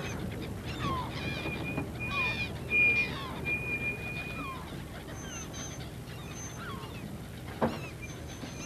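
Gulls calling over and over in short falling cries, with stretches of a steady high whistling tone among them and the boat's engine humming low underneath. A single sharp knock comes about three-quarters of the way through.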